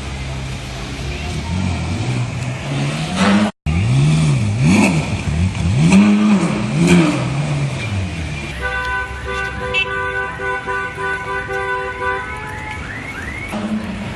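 Ferrari engine revved hard: one rising rev, then, after a brief cut, several sharp throttle blips whose pitch climbs and falls. About eight seconds in, parked cars' alarms go off, set off by the revving: steady alarm tones with a quickly repeating rising chirp.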